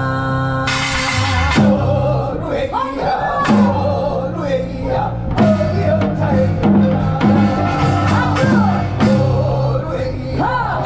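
Music: a Korean taryeong folk song sung in pansori style over a band with drum kit. A held chord opens, a drum beat comes in about a second in, and the ornamented, sliding vocal line enters a little later.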